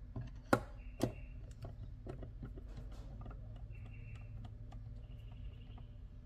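Screwdriver backing small screws out of the plastic housing of a Subaru SVX instrument cluster: two sharp clicks about half a second and a second in, then light irregular ticks and scrapes of the tool on the screws and plastic.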